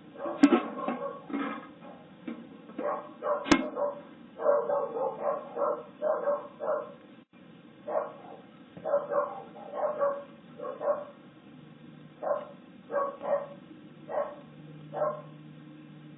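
A dog barking over and over, in short barks about once or twice a second, heard through a security camera's thin-sounding microphone. Two sharp clicks come near the start.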